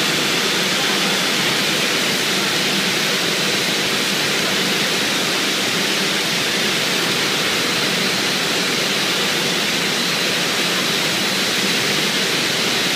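Row of oxy-fuel cutting torches on a multi-torch CNC flame cutting machine hissing steadily as they burn through steel plate, with a faint high tone running through the hiss.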